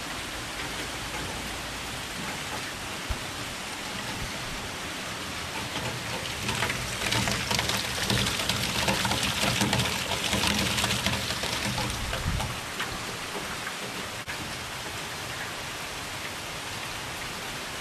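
Steady heavy rain. From about six seconds in to about twelve seconds it grows louder as water gushes from a rain-gutter downspout and splashes onto the lawn.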